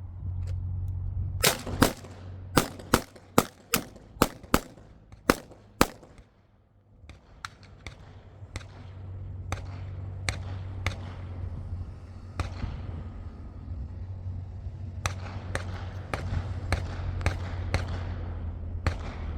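A rapid string of ten gunshots fired as five quick pairs, two shots on each of five targets, in the first six seconds. After a brief lull, fainter sharp shots keep coming at irregular intervals over a steady low rumble.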